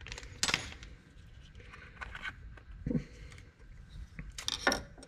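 Faint, scattered light clicks and taps of small instrument-cluster parts being handled by hand on a workbench, with a louder cluster of clicks about four and a half seconds in.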